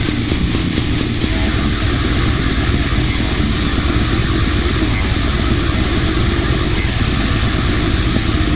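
Brutal death metal: heavily distorted electric guitars with drums. About a second in, the separate drum hits give way to a dense, unbroken wall of sound.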